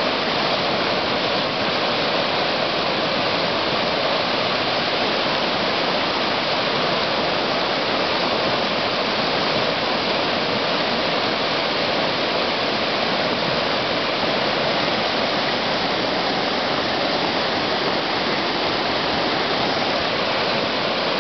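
Whitewater rushing through a river rapid: a steady, loud rush of water that holds level throughout.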